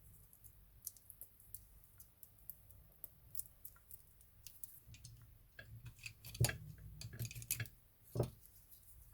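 Light clicks and taps of small tools and objects being handled and set down on a hard work surface, busier in the second half, with a few louder knocks about six and a half and eight seconds in.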